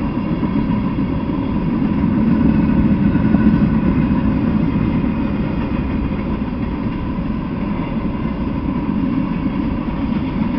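Freight train cars rolling past: a steady rumble of wheels on rails that swells a little about three seconds in.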